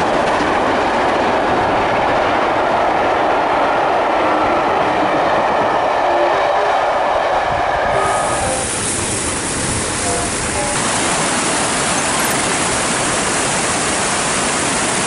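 LMS Black Five 45212, a 4-6-0 steam locomotive, passing with its train of coaches. About eight seconds in, the sound turns to a brighter, steady rushing noise.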